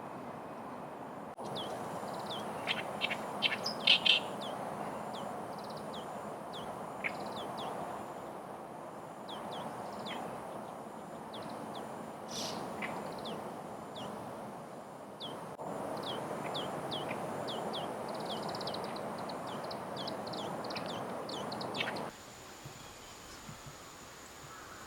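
Small birds calling in quick runs of short, high chirps over a steady outdoor background noise. The background changes abruptly a few times, and the chirping stops near the end.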